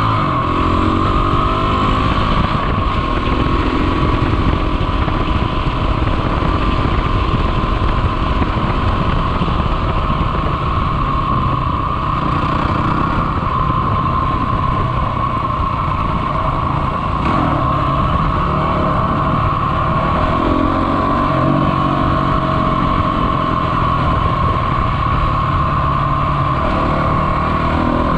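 Honda CRF250 dirt bike's single-cylinder four-stroke engine running steadily while riding. The revs climb through the gears a few times: at the start, about two-thirds of the way through, and near the end.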